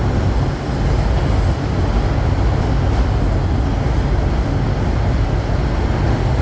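Steady rumble of a moving train, heard from aboard the car as it rolls along the track.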